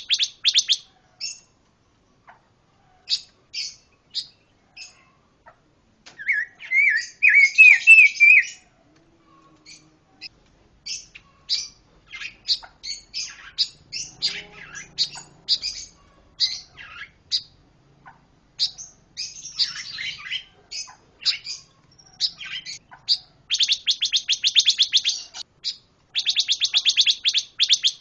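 Pancawarna songbird singing a varied song of short, sharp chirps and whistled notes. A run of lower, bending whistles comes about a quarter of the way in, and fast rattling trills come at the start and again in the last few seconds.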